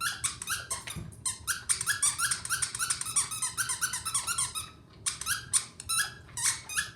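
Dog whimpering in a rapid run of short, high, falling squeaks, several a second, pausing briefly about five seconds in; a sign of the dog being scared.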